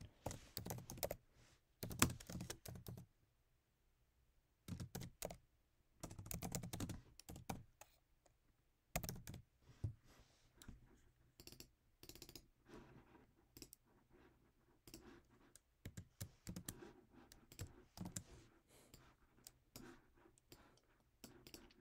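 Quiet typing on a computer keyboard: short runs of keystrokes with pauses between them, typing a text label onto a trading chart.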